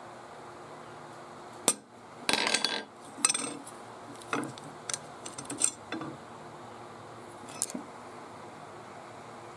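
A hammer strikes a steel transfer punch sharply, a little under two seconds in, to mark the drill spot on an FAL gas plug. Steel parts then clink and rattle against a steel plate in a string of short metallic clinks, with a second sharp hit about a second later.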